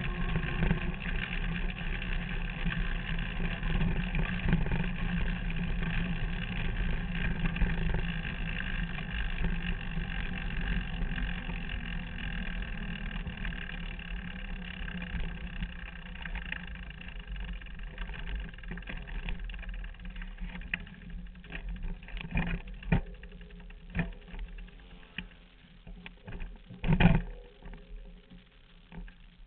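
Derny pacing motorbike's small engine running steadily, then fading away over about twenty seconds. A few sharp knocks follow near the end, the loudest about 27 seconds in.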